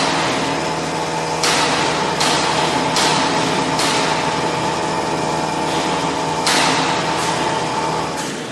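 XH7145/VMC650 CNC machining center running: a steady machine whine with several sudden hissing bursts that start sharply and fade. The whine stops near the end.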